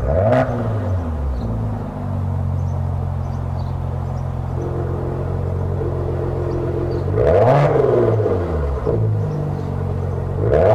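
Maserati Ghibli's twin-turbo V6 breathing through a Quicksilver valved stainless steel sports exhaust in Sport mode, idling steadily with two quick throttle blips, one right at the start and one about two-thirds of the way through, each rising in pitch and falling back to idle.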